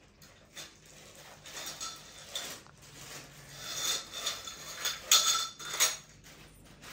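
Irregular clicking, rattling and clinking of small hard parts being handled, the loudest clacks coming about five and six seconds in.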